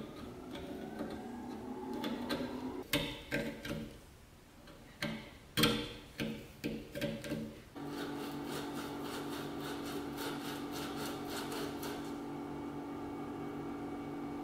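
Hand chisel paring the end of a wooden tool handle held in a vise: a series of short, sharp cutting scrapes and taps. About eight seconds in, a steady hum with a regular pulse of about five beats a second starts abruptly and runs on at an even level.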